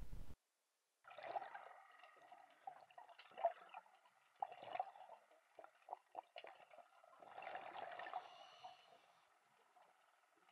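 Faint gurgling of water underwater, in a few irregular spells with scattered small clicks, the longest spell near the end.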